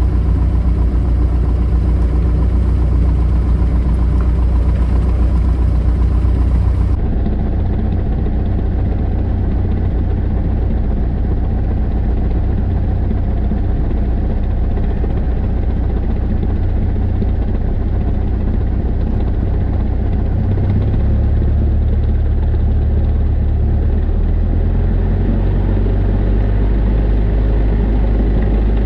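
A single-engine light aircraft's piston engine and propeller idling on the ramp, heard from inside the cabin as a steady low rumble. A hiss above it drops away about seven seconds in, and the engine note shifts slightly twice in the second half.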